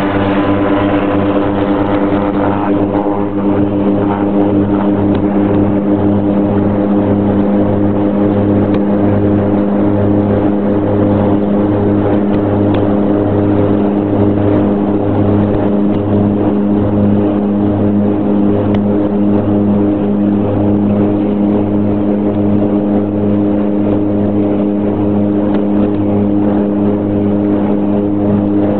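Let 410's twin turboprop engines running steadily at high power during the takeoff run, heard from inside the cockpit: a loud, even hum with a low pulsing beat.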